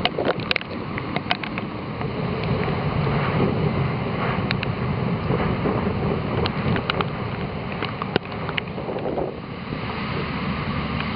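Typhoon wind and rain: a steady, fairly loud rushing with gusts buffeting the microphone, broken by scattered sharp ticks.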